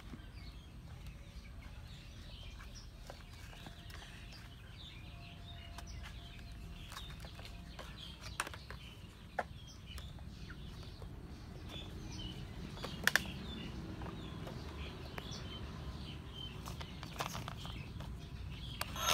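Quiet outdoor ambience with frequent faint bird chirps and a low steady rumble, broken by a few sharp clicks, the loudest a pair about 13 seconds in.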